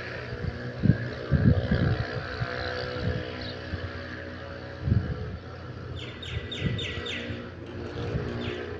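Wind buffeting the microphone over a steady low hum, with a bird giving a quick run of about five short, sharp chirps shortly after the middle.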